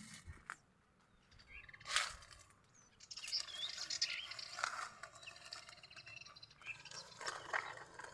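Birds chirping in short, scattered calls, with a few clicks or knocks in between.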